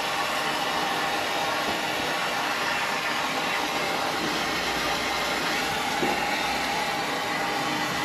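Steady rushing noise of a running machine, with a faint hum.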